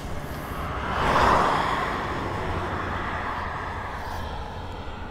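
Motorcycle riding on a highway: a steady rush of wind and road noise over a low engine rumble, which swells briefly about a second in.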